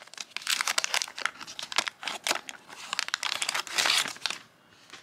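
Waxed-paper wrapper of a 1990 Fleer basketball card pack being torn open and crumpled: a run of crackling and crinkling, loudest near the end, stopping about four seconds in.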